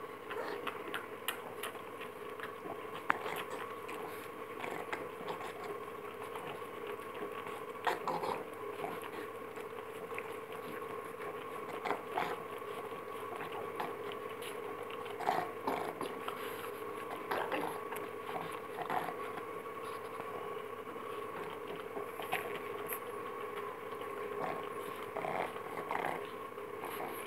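A pug licking and biting at an orange ice lolly on a stick: irregular wet smacks and small crunches, over a steady background hum.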